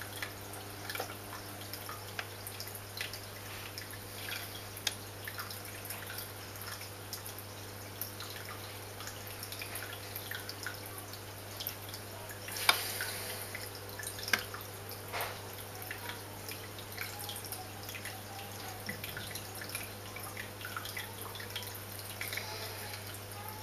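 Water dripping and trickling in a home aquarium, with many small drips scattered throughout over a steady low hum. Two louder, sharper drips or splashes stand out a little past halfway, about a second and a half apart.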